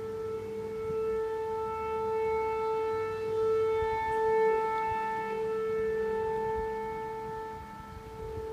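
A long, steady horn-like drone on one pitch with several overtones, swelling louder in the middle and easing off near the end. It is the kind of unexplained 'trumpet sound' that the recordist heard in the sky.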